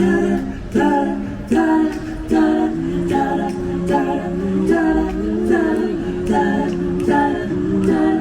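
Voices singing in close harmony with no instruments, a cappella. Held chords are restruck roughly every eighth of a second less than a second, in a steady rhythm.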